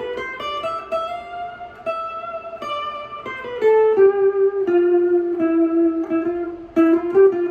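Fender Telecaster electric guitar playing a slow single-note line in D Dorian in the higher register, one note at a time, several held for about a second.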